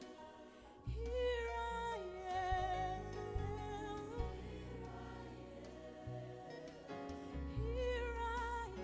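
Worship music: a sung voice with vibrato holding long notes over steady bass notes, coming in louder about a second in.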